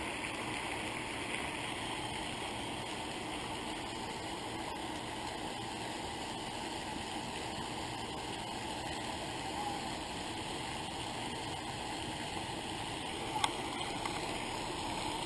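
Steady splashing hiss of a pond spray fountain, with a single sharp click near the end.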